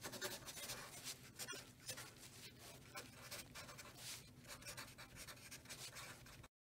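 Felt-tip marker drawing on paper: a run of quick, scratchy strokes as letters are outlined and filled in. The sound cuts off suddenly near the end.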